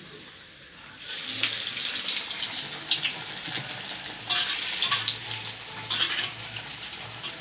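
Masala bara fritters sizzling and crackling in hot oil, starting about a second in as they go into the pan.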